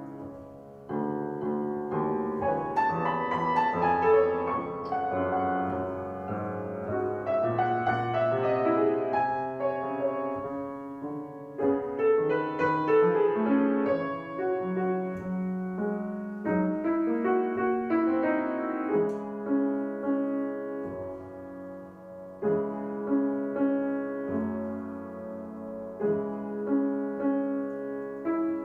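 Piano playing a piece in phrases, with short breaks between them about a second in and again past the middle.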